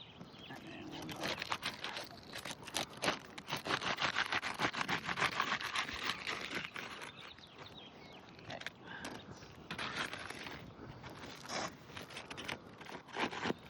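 Asphalt roofing shingles being pried up and untabbed, their sealed tabs tearing loose from the adhesive strip: repeated scraping and crackling, densest in the middle.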